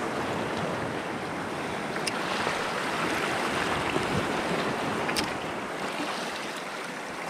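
Surf washing over a coral reef shoreline, a steady rush of water with some wind on the microphone. Two faint light clicks stand out, about two and five seconds in.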